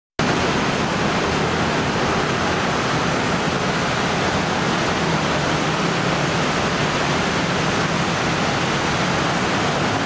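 Steady, dense noise of hundreds of scooters streaming downhill past at close range on a wet road: many small engines blended together with tyre hiss, no single machine standing out.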